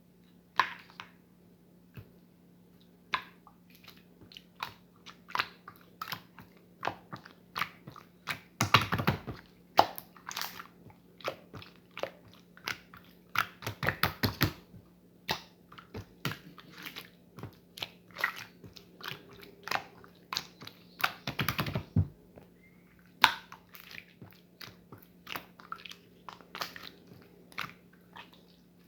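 Slime being squeezed and stretched by hand, giving a string of sticky clicks and pops with denser crackling bursts about a third of the way in, near the middle and about three quarters through.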